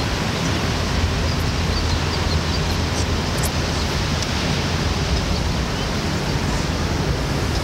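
Ocean surf washing steadily, an even rushing noise with a low rumble underneath.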